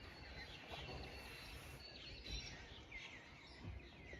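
Faint outdoor ambience: small birds chirping now and then over a low, steady rumble.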